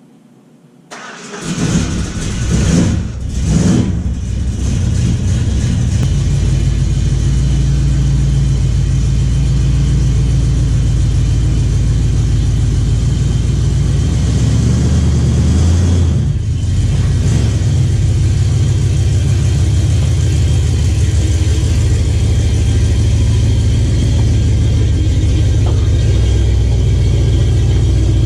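1979 Ford F250 engine starting about a second in, revving briefly twice as it catches, then running steadily, with one short dip in speed partway through. It is starting with its spark box ignition connected, without which it would not start.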